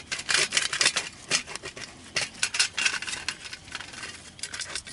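Carbon steel knife worked by hand in quick, sharp scraping strokes against the fire kit's quartz or chaga. The strokes come in irregular runs, with a short pause just before the end.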